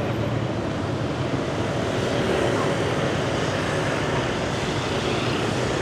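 Steady city street traffic noise: the hum of motor scooters and cars passing.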